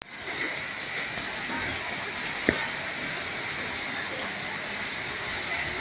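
Heavy storm downpour of rain and hail falling steadily, with a single sharp knock about two and a half seconds in.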